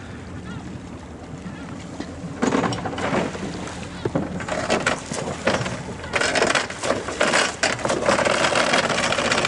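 Small wooden fishing boat under way, its engine running low and steady. From about two and a half seconds in, loud, uneven rushing noise joins it.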